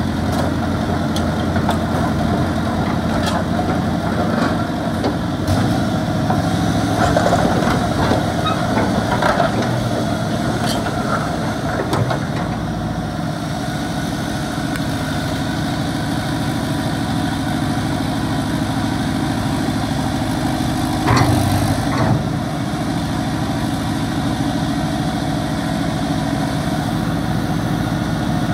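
Komatsu PC120 excavator's diesel engine running steadily while the boom and arm are worked. There are a few short knocks and one brief louder rise about three-quarters of the way through.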